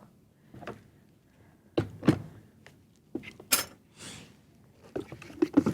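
A few separate knocks and clunks of kitchen containers and utensils being handled and set down on a counter, with a brief hiss partway through.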